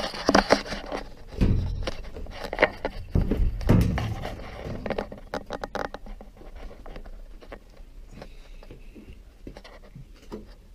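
Top cover of a front-loading washer being lifted off and set aside: scraping and several knocks in the first few seconds, then quieter handling.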